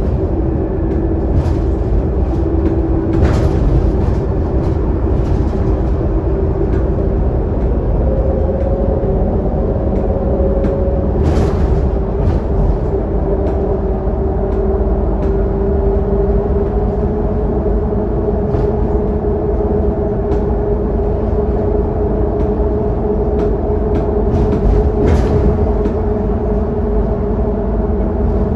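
Scania K280UD double-decker bus heard from inside the lower deck on the move: a steady engine and drivetrain drone with a held whine that rises slightly in pitch around the middle, over low road rumble. A few sharp clicks stand out, about three seconds in, near twelve seconds and near twenty-five seconds.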